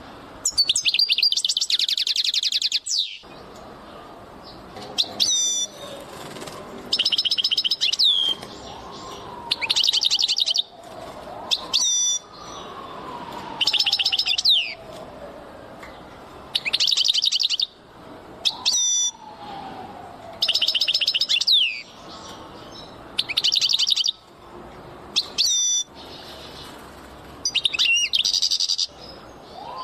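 A songbird singing in short phrases of fast, high trills, each starting with a quick whistled sweep, repeated about every two seconds. Beneath the song, a fainter lower tone slides slowly downward several times.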